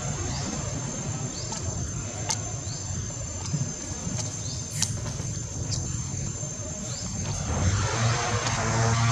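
A steady high-pitched insect drone over a low rumbling outdoor noise, with a few sharp clicks.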